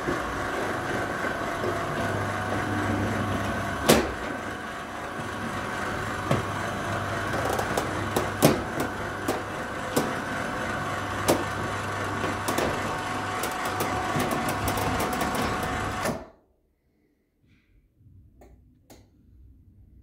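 Fire roller shutter being driven open by its electric motor: a steady motor hum with the slats clicking and knocking as the curtain rolls up. It stops abruptly about sixteen seconds in, when the shutter is fully open.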